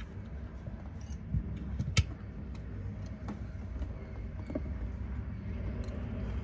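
Small clicks and taps of a screwdriver prying at plastic A-pillar trim held by tight clips, with one sharp click about two seconds in. A steady low hum runs underneath.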